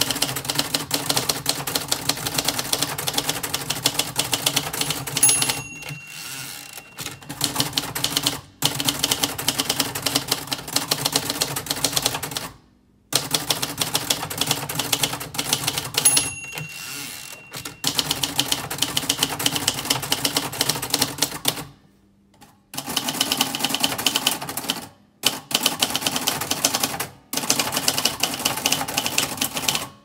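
Fast typing on a 1975 Royal Custom III manual portable typewriter: a dense run of key and typebar clacks, broken by a few short pauses. The margin bell dings twice, about five and sixteen seconds in, each time followed by a short quieter stretch.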